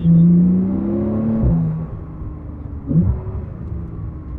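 Porsche 911 Turbo S twin-turbo flat-six through a Fabspeed Valvetronic exhaust, accelerating hard with its note rising in pitch. The note breaks and drops at a gear change about a second and a half in, with a brief sharp surge near three seconds before it settles lower.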